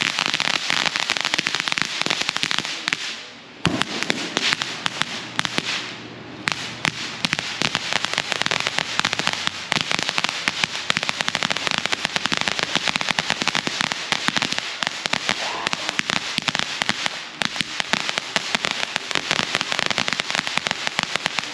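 Popcornators crackling fountain firework spraying sparks: a dense, rapid crackle of many small pops, dipping briefly about three and a half seconds in and again about six seconds in, then dying away at the very end.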